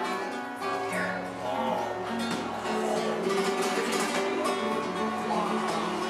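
Flamenco guitar music: an acoustic guitar played with a quick run of plucked notes and strums.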